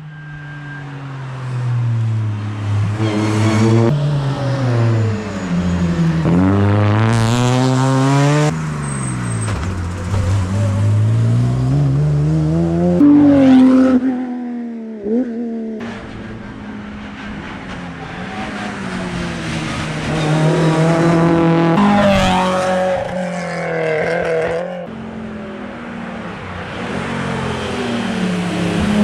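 Rally cars' engines at full throttle, accelerating in pitch and dropping back at each gear change as they pass at speed, several passes cut one after another.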